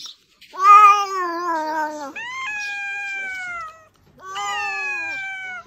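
A cat meowing in three long, drawn-out calls, each sagging in pitch at its end.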